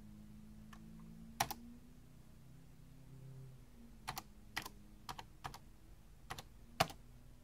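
Key presses on a Tandy Model 102's keyboard, its keys fitted with new switches: a single press about a second and a half in, then a quick run of presses from about four seconds in as a number is typed in, the last press the loudest.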